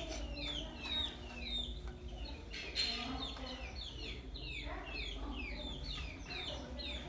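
Bantam chickens calling: a steady stream of short, high chirps, each falling in pitch, several a second.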